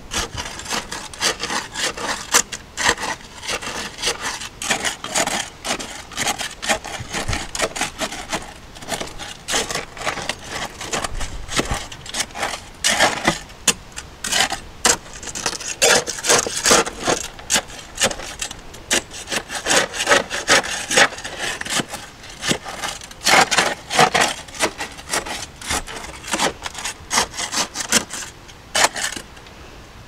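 A steel bar is jabbed again and again into dry Quikrete concrete mix and gravel in a narrow wooden form. It makes irregular gritty scrapes and crunches, several a second, as the mix is worked down through the rocks.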